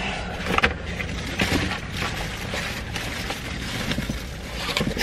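Paper takeout bag and quilted jacket rustling and crackling irregularly as they are handled and shifted, over a low steady hum inside a car.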